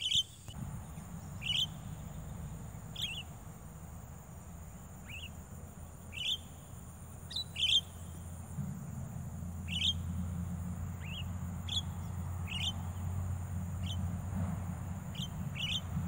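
Javan mynas calling: short, sharp calls repeated roughly once a second. A low steady rumble runs underneath and grows louder about halfway through.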